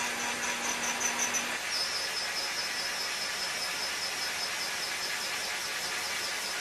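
CNC milling machine cutting metal: a steady high whine from the spindle over a hiss of cutting. About a second and a half in, the whine shifts a little lower in pitch and turns steadier, and a low hum drops away.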